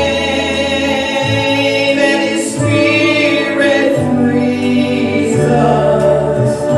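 A gospel song: a woman singing with choir voices and an accompaniment track, long held notes over a bass line that moves from note to note.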